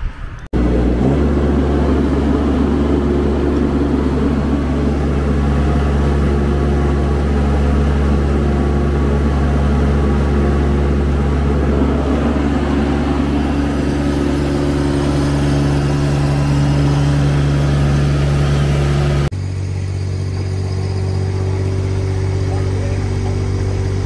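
A Baumalight TRL620D mini skid steer's engine running steadily at working speed, with an abrupt change in tone about 19 seconds in.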